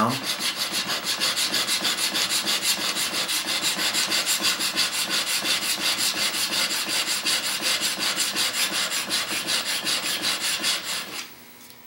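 Steel chisel bevel, clamped in a honing jig, scraped rapidly back and forth on an extra-coarse DMT diamond sharpening plate: a steady gritty rasp, about four to five strokes a second, that stops about a second before the end. It is the coarse stage of honing, flattening the bevel into one clean facet.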